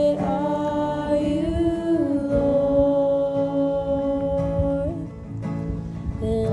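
A woman's voice holds long sung or hummed notes, changing pitch a few times, over acoustic guitar accompaniment.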